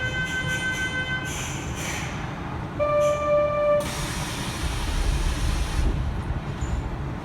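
Kintetsu 3220 series train departing: a steady electronic tone stops about a second in, and a shorter, lower beep sounds near the middle. A loud burst of air hiss follows as the brakes release, and a low rumble rises as the train starts to move.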